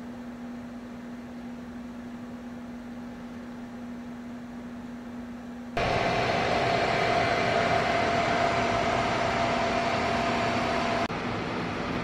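Open-cased 24 V pure sine wave inverter running under load, a steady electrical hum at first. About six seconds in it turns abruptly much louder, a steady rush of its cooling fans with a thin whine as heard right over the open case. It eases off a little near the end.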